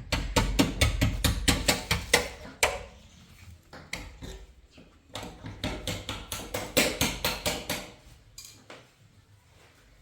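Rapid series of sharp taps or knocks, about five or six a second, in two runs of a few seconds each with a quieter gap between.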